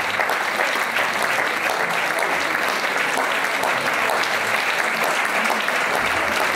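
Audience applause: dense, steady clapping with no break.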